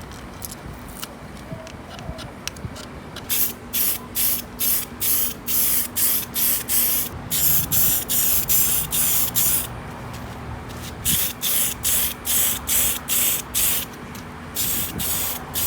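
Aerosol spray-paint can spraying matte black paint in repeated short bursts of hiss, roughly two a second, starting about three seconds in.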